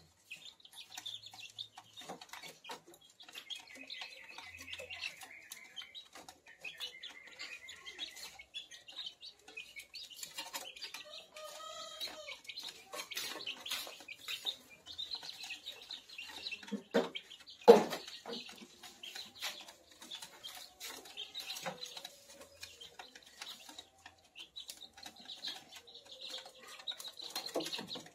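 One-month-old kampung (native village) chicks peeping and chirping, with many short clicks and scuffles as they move about. One sharp, loud knock comes about 18 seconds in.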